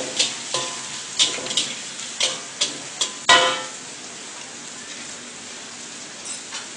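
Metal spatula striking and scraping a wok while stir-frying noodles: about ten sharp, ringing clangs over a steady sizzle. The clangs stop about halfway through, and the sizzle carries on.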